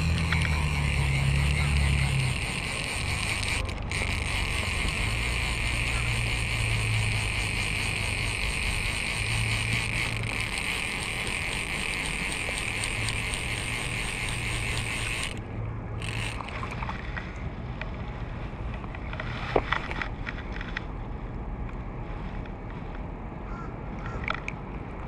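Close handling noise while a small fish is landed and unhooked on a fly rod: a steady rasping right at the microphone that cuts off suddenly about fifteen seconds in, followed by quieter rustling and a few light ticks.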